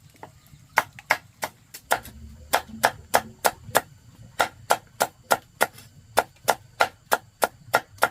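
A blade chopping on a cutting board with sharp, regular strokes at about three a second, in runs broken by short pauses.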